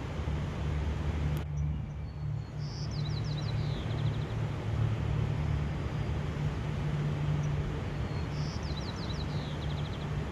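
A songbird sings the same short phrase twice, about six seconds apart: a high note followed by a quick run of falling notes, over a steady low rumble, with a single sharp click about a second and a half in.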